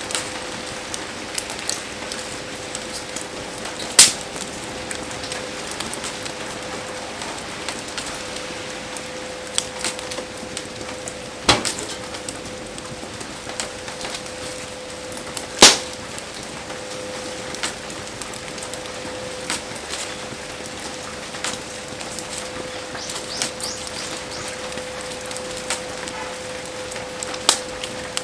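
Wood fire crackling in heavy rain: a steady hiss of rain with small ticks and four loud, sharp pops from the burning wood. A faint steady hum runs underneath.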